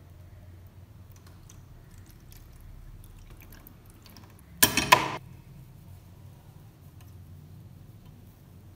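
Liquid poured in a thin stream onto a rusty knife blade in a plastic tray, with faint trickling and drips. A little before halfway, a brief loud clatter and splash.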